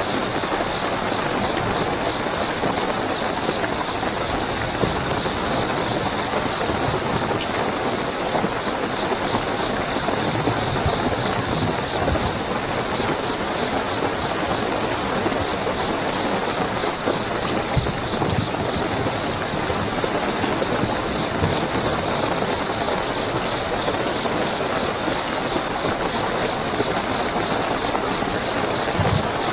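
Steady, heavy rainfall with a continuous high, even cricket chirping running under it.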